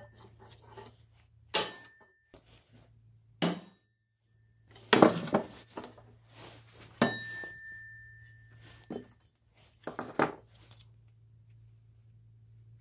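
Hammer striking a steel punch to drive drilled-out rivets out of a bench grinder's sheet-steel wheel guard: separate strikes a second or two apart, several with a short, high metallic ring from the guard.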